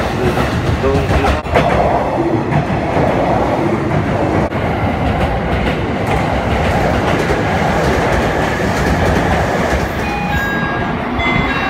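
JR electric trains running on the tracks, a steady rumble with wheels clacking over rail joints and points and a few sharp clicks. A few brief high tones come near the end.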